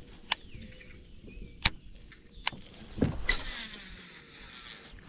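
Baitcasting reel: a few sharp clicks as it is handled, then a cast, with the spool whirring as line pays out and its pitch falling as the spool slows.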